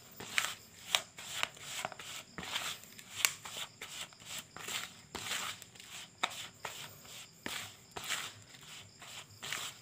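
Plastic spoon scraping and stirring a dry, crumbly carp-bait mix in a plastic bowl, in repeated uneven strokes, several a second.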